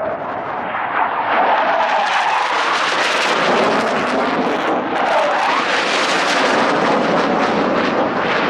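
Low-flying military jet passing through a valley: a loud rushing roar that builds about a second in and stays loud, with a crackling edge and slowly sweeping tones.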